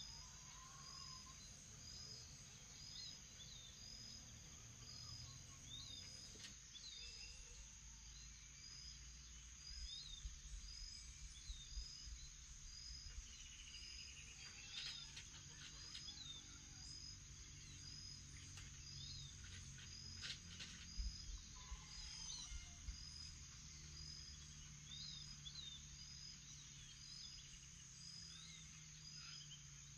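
Faint morning forest ambience: a steady high insect drone, with a short high call repeating about one and a half times a second and scattered bird calls over it.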